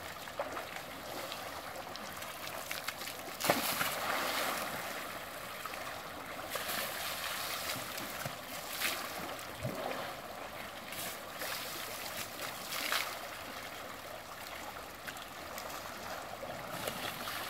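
River water flowing steadily, broken by water splashing several times as water is thrown from a bucket and an elephant sprays water from its trunk. The loudest splash comes about three and a half seconds in.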